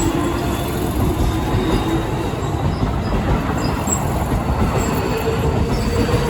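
Electric commuter train running past close by, a loud steady rumble of wheels on rails, with a thin wheel squeal coming in about five seconds in.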